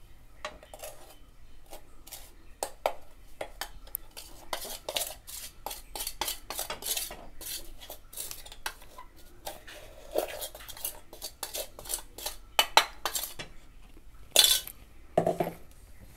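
Steel spoon clinking and scraping against a steel container as powdered sugar is tapped out into a steel kadai: a run of irregular clinks and taps, with a few louder knocks near the end.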